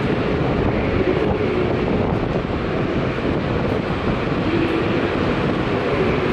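Nishi Kyushu Shinkansen N700S Kamome train pulling in alongside the platform: a steady low rumble with a faint wavering hum.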